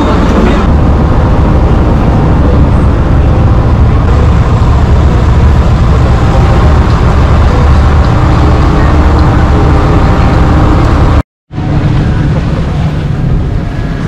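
Tour boat's engine running steadily, a loud low rumble heard from on board, with a brief break about eleven seconds in.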